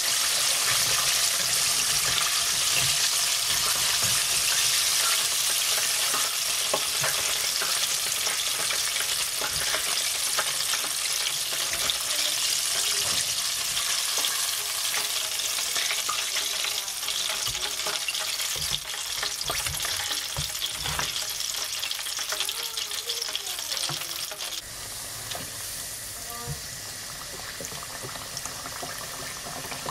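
Breaded chicken deep-frying in a pot of hot oil: a steady sizzle and bubbling, with occasional light clicks of tongs against the pot as pieces are turned and lifted out. The sizzle gets quieter about 25 seconds in.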